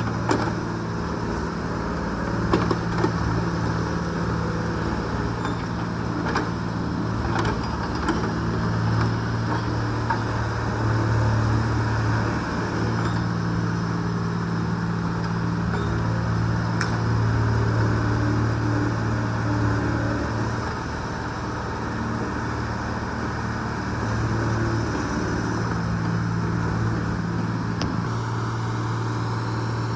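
Small excavator's engine running steadily, its note swelling and easing as it works under load, with a few sharp metallic knocks in the first several seconds.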